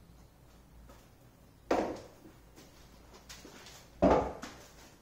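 Two sudden solid thumps about two seconds apart, with a few faint small knocks between them.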